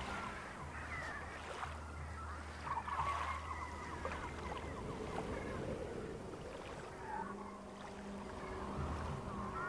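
Seabirds calling, many short sliding calls, over a steady low hum. About seven seconds in, low held tones come in underneath.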